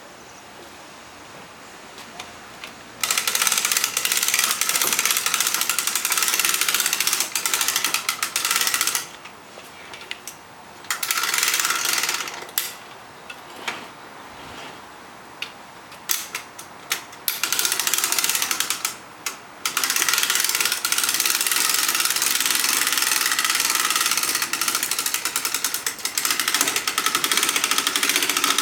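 Lifting mechanism of a kart loading trolley running in bursts with a fast, even mechanical clatter as it raises a kart. It stops and starts several times, and the longest run is in the second half.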